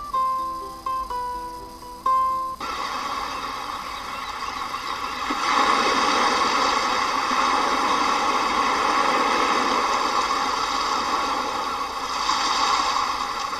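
A few plucked-string notes of background music that break off after about two and a half seconds, replaced by a steady rushing noise that grows louder about halfway through.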